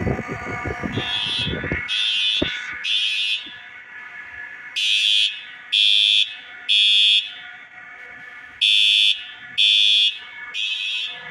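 School fire alarm horns sounding in groups of three short blasts with a longer pause between groups, the three-pulse evacuation pattern. A low rumbling noise fades out about two seconds in.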